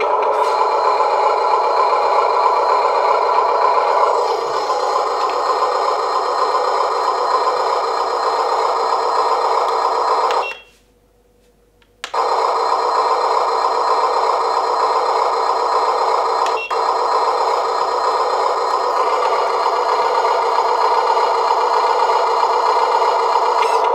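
Electronic truck-engine sound from the Amewi Mercedes-Benz Arocs RC truck's built-in sound module, played through its small speaker and running steadily. It cuts out about halfway through for a second and a half, then starts again after a click.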